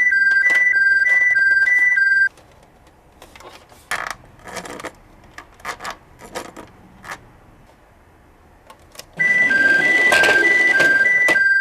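Toy ambulance's electronic hi-lo siren, two tones alternating quickly, cutting off about two seconds in. Then scattered clicks and light rattles of the toy being handled, until the siren starts again near the end with a rushing noise under it.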